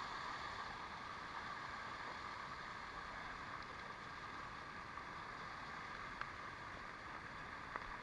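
Steady rush of waterfall water running down a rock face, with a few faint clicks near the end.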